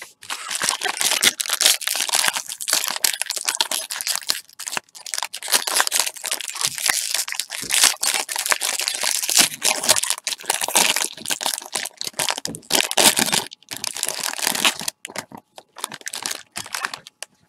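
Foil wrapper of a baseball card pack being torn open and crumpled by gloved hands, a loud, continuous crinkling with a few short pauses near the end.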